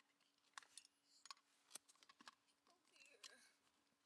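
Near silence broken by several faint, sharp clicks and light rustling as a car seatbelt is handled around an infant car seat, over a faint steady hum.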